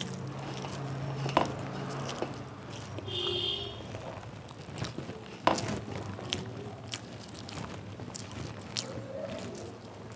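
Fingers squishing and kneading soft mashed bhorta into rice on a metal plate, with small clicks of fingers on the plate and two sharper knocks, about one and a half and five and a half seconds in.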